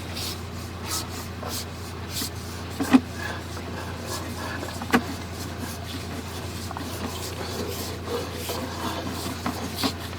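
Sewer inspection camera gear: a steady low hum with scraping and rubbing, and scattered knocks, the loudest about three and five seconds in, as the camera works through a pipe choked with scale and buildup.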